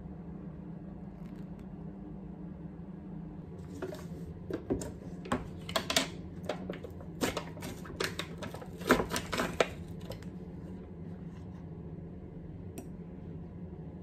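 Foil lid being peeled off a yogurt cup: a run of crinkly crackles starting about four seconds in and lasting about six seconds, over a steady low hum.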